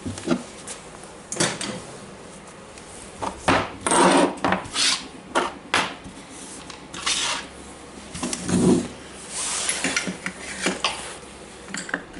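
Metal parts of a disassembled angle grinder being handled on a workbench: irregular clinks and knocks with short scraping and rubbing sounds.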